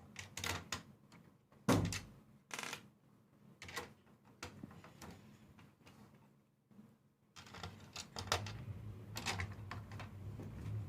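Plastic keys of a MIDI keyboard clicking and knocking as the last octave is fitted back into place, with one louder knock near the start. A low steady hum comes in about halfway through under further clicks.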